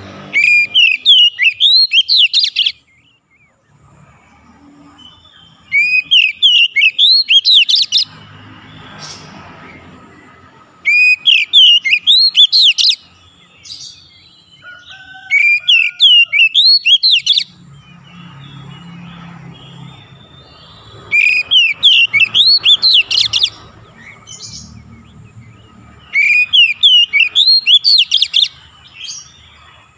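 Oriental magpie-robin song: six loud phrases about five seconds apart, each about two seconds of quick rising notes, with faint background noise between them.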